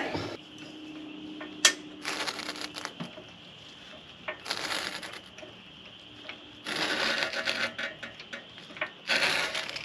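Bursts of rapid mechanical clicking and clattering, with one sharp click about a second and a half in, from jacking up a Land Rover Discovery 2 and working on its wheel to fit a bigger tire.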